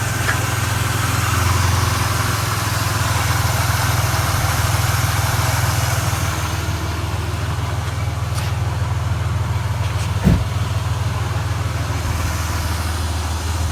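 Holden VY Commodore's supercharged 3.8-litre V6 idling steadily with its newly fitted alternator. A single short knock comes about ten seconds in.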